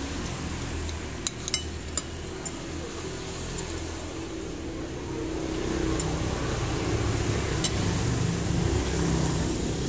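A metal spoon clinking against a plate several times in the first few seconds and once more later, over a steady rumble of road traffic.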